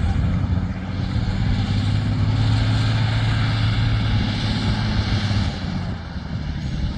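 An engine running with a steady low hum, its noise swelling through the middle and easing off near the end.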